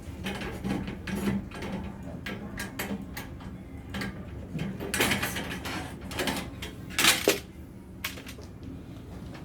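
Aluminum frame sections and parts of a display being handled and set down: scattered knocks and rattles, a longer scraping noise about five seconds in, and two sharp clacks about seven seconds in.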